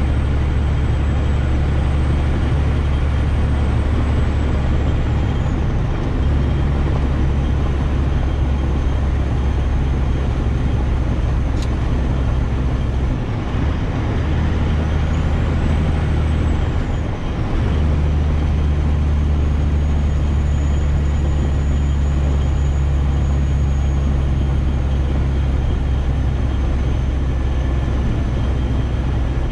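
Semi truck's diesel engine and road noise, a steady low drone while driving, with two short dips in the drone midway.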